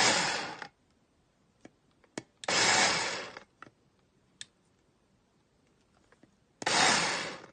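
KingAcc 500 W mini electric food processor run in three short pulses of about a second each, each starting suddenly and dying away, with faint clicks in between.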